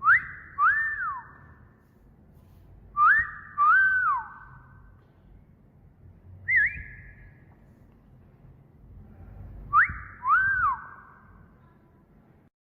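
Wolf whistle repeated three times, each a quick upward note followed by a longer note that rises and then falls, with a short single chirp in between.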